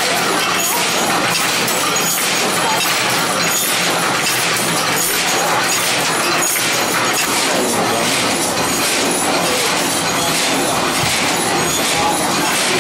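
Posamenter ribbon loom running, its punched-card (Jacquard) head and weaving mechanism keeping up a fast, even, rhythmic clatter.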